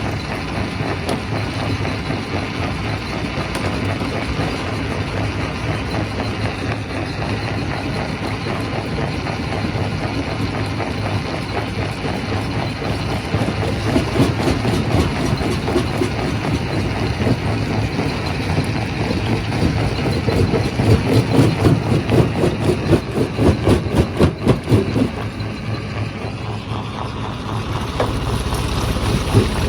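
Quarry primary rock crusher running under load, a steady heavy machine drone with a dense clatter of knocks as rock is broken. The clatter grows heavier and pulses from about halfway through to near the end.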